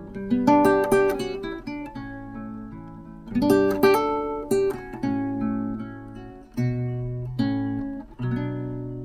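Background acoustic guitar music, chords plucked and strummed, each one fading before the next.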